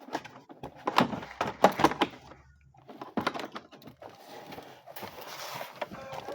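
A box and its packaging being opened and handled by hand: a run of sharp clicks and knocks, then rustling from about two-thirds of the way in.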